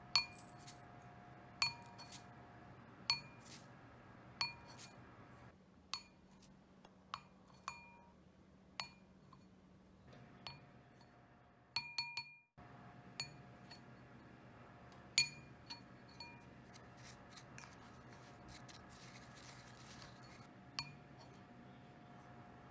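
Wooden spoon knocking against a white ceramic mixing bowl as dry baking ingredients are tipped in: a series of short clinks, each with a brief ring, a fraction of a second to a couple of seconds apart. There is a soft rustle of the dry mix in the second half.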